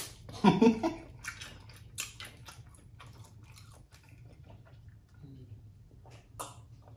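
Eating sounds: sucking and chewing boiled crawfish, with wet smacks and small clicks, after a short voiced mouth sound about half a second in. A sip of drink follows near the end.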